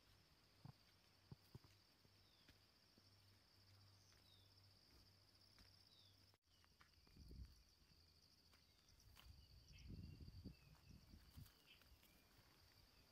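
Faint, steady high-pitched insect drone with a few short falling bird chirps, and bouts of low thumps about halfway through and again near the end.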